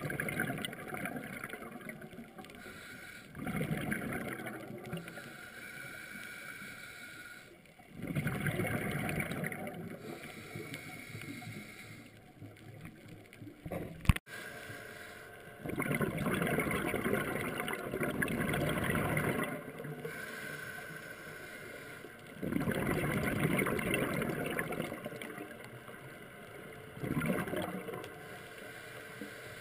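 A scuba diver breathing through a regulator underwater: exhaled bubbles rush out in gurgling bursts every few seconds, with quieter hiss between breaths. A single sharp click comes about halfway through.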